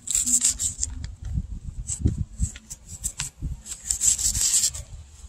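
Fillet knife scraping along a walleye fillet laid on newspaper in short, irregular strokes, taking the scales off.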